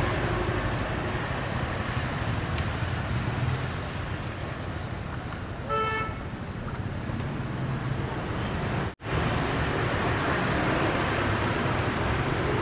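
Steady street traffic noise, with a short horn toot about six seconds in. The sound cuts out for an instant about nine seconds in.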